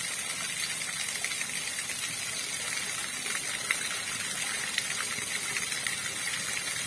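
River water flowing: a steady rush with many small splashes and drips through it.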